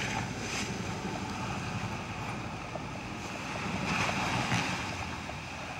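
Boat under way in rough sea: a steady rush of churning water and wind over a low rumble, swelling louder about four seconds in.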